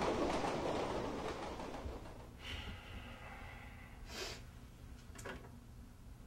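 A passing train's rumble fades away over the first two seconds, leaving a quiet room with a few faint short noises.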